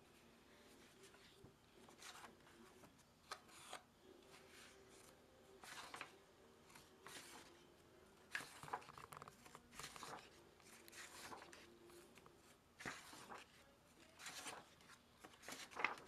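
Sketchbook pages being handled and turned: faint, irregular paper rustles and scrapes, the loudest one near the end.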